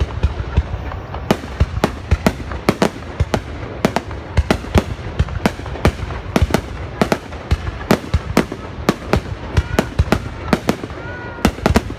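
Fireworks exploding in a dense barrage: sharp, irregular bangs several times a second over a continuous low rumble.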